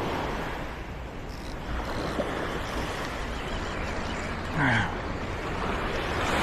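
Surf washing over a shallow reef with wind buffeting the microphone, the wash swelling near the end. A brief sound falling in pitch is heard about two-thirds of the way through.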